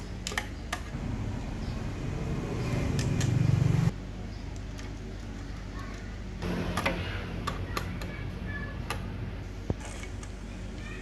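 Light clicks and metallic taps of a screwdriver and wires being worked into a generator control panel's breaker terminals, over a steady low hum. A louder low rumble builds from about a second in and stops abruptly near four seconds.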